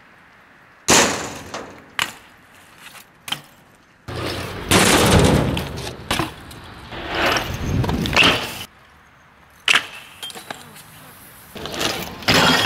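BMX bike riding: a hard landing impact about a second in, then several seconds of tyres rolling over rough pavement. Another sharp impact comes later, and near the end the metal pegs clatter and scrape along a brick ledge.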